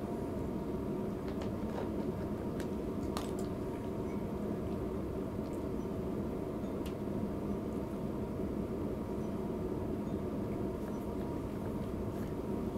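A cat eating from a plastic food bowl: scattered faint wet clicks of chewing over a steady low background hum.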